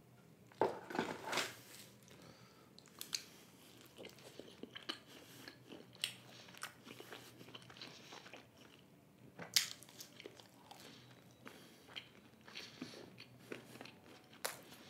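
Close-up chewing and biting of paneer tikka stuffed garlic bread with a slightly crispy base: soft crunches and small mouth clicks. There is a crackly stretch about a second in as the bread is pulled apart, and a sharper crunch near ten seconds in.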